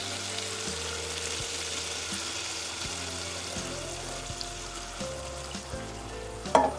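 Tamarind water poured into hot frying masala in an iron kadai: a steady pouring hiss with sizzling that dies down in the second half as the pan fills. Background music plays underneath, and a single sharp knock sounds near the end.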